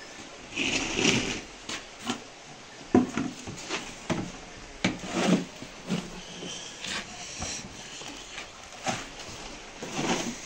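Gloved hands mixing and scooping dry cattle feed in a metal wheelbarrow: irregular rustling and scraping, with a few sharp knocks now and then.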